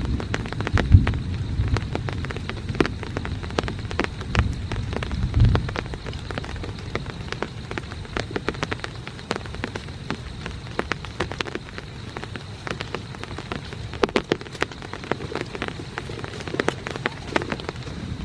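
Rain falling on a tent, heard as many irregular sharp drop taps over a steady hiss. A low rumble runs underneath for the first several seconds, then fades.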